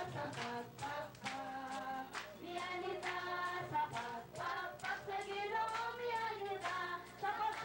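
A congregation singing a praise song together and clapping along in time, about two claps a second.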